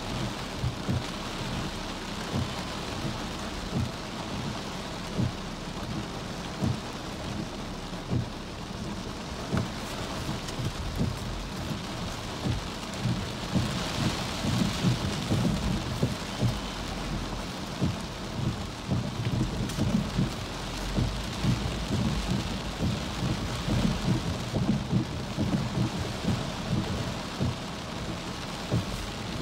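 Heavy wind-driven rain beating on a car's windshield and body, heard from inside the car: a steady hiss of rain with many short, dull low knocks throughout.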